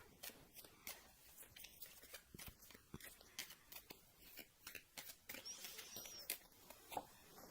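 Tarot cards being shuffled by hand: a run of faint, irregular soft clicks and flicks of the card stock.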